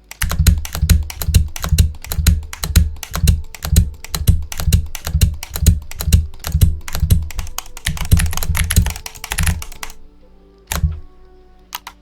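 Rapid typing with keyboard sounds generated by a mechanical-keyboard sound app: a steady clatter of clicks with a heavy thock about three times a second, a faster flurry near the end, then typing stops about ten seconds in, leaving a few single keystrokes over faint music.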